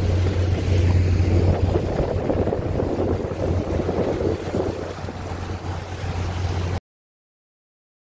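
A boat engine running with a steady low hum, with wind on the microphone and water rushing; the sound cuts off abruptly near the end.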